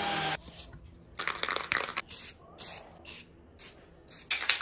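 Aerosol spray can hissing in several short bursts. In the first moment a handheld power tool winds down to a stop.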